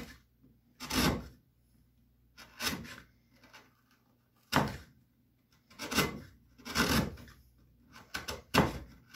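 Carving gouge paring wood by hand: about seven separate short scraping cuts as the blade shears shavings off.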